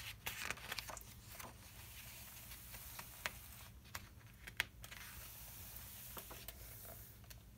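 Faint handling of a picture book: soft paper rustles and scattered small ticks as the pages are moved and turned, over a low steady hiss.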